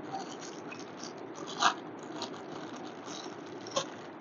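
Faint handling sounds of the trolley's packed caster wheels: a few light clicks and rustles over a steady low background noise, the clearest about one and a half seconds in and again near the end.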